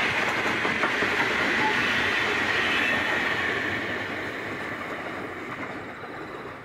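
Steel wheels of a loaded grain train's hopper wagons rolling past on the rails, with a high steady tone over the rumble. It fades away over the last few seconds as the end of the train moves off.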